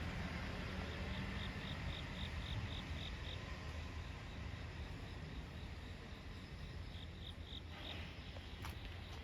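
An insect chirping in short, evenly spaced, high pulses, about four a second: a run of about ten, then a shorter run of four a few seconds later.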